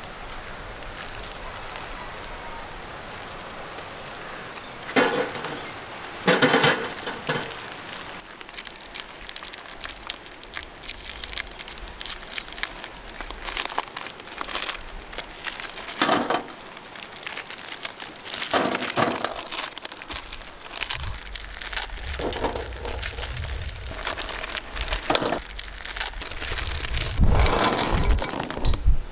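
Plastic biscuit wrappers being torn open and crinkled, with Oreo biscuits dropping and clattering into a steel bowl in irregular bursts. Near the end comes a longer rattle as a plateful of biscuits is tipped into the bowl.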